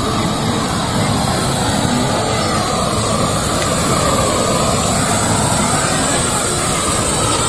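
Steady, loud rushing noise of a large wood-and-brush bonfire flaring up as it is lit with a gas torch.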